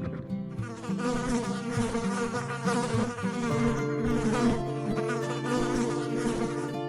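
Insect-like buzzing, a continuous drone whose pitch wavers.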